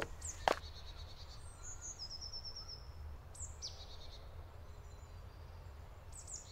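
Forest ambience: small birds singing high-pitched, with a rapid trill about two seconds in and short falling notes a little later, over a low steady rumble. Two sharp knocks at the very start.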